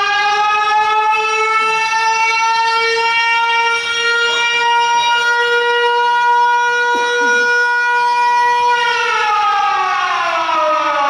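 A siren wailing on one steady tone that rises slightly at first. About nine seconds in, its pitch starts sliding steadily down as it winds down.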